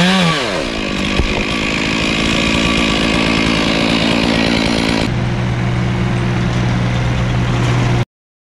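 A chainsaw drops off throttle, its pitch falling, and keeps running. About five seconds in it gives way to the steady engine of a Ditch Witch SK650 mini skid steer. The sound cuts off abruptly near the end.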